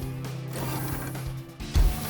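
Mech robot mechanism sound effect: a steady mechanical servo hum with ratcheting, gear-like detail. About 1.7 seconds in comes one heavy low thud, like a giant robot's joint locking or foot landing.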